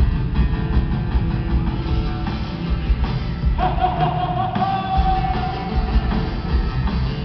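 Amplified live music from a Bolivian folk band on stage, with guitars and a steady beat. A long high note is held for a couple of seconds from about three and a half seconds in.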